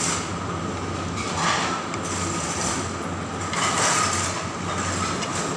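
Steady background din of an open-air eatery: a constant low hum under a wash of noise, swelling briefly about a second and a half in and again around four seconds.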